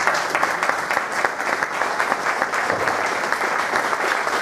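Audience applauding: dense, even clapping from many hands at a steady level.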